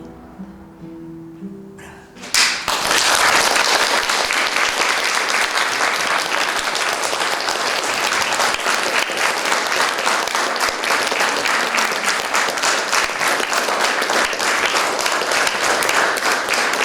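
A few soft acoustic guitar notes, then, about two seconds in, audience applause breaks out suddenly and keeps on, loud and dense.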